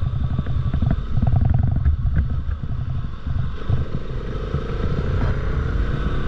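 Bajaj Pulsar RS200 single-cylinder motorcycle engine running under way, heard from the bike with a heavy, unsteady wind rumble on the microphone. About three and a half seconds in, a steady whine comes in and slowly rises in pitch as the revs climb.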